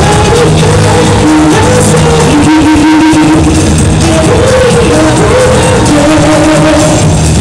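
Loud amplified music in a hall, a melody line stepping up and down over a full, steady low end.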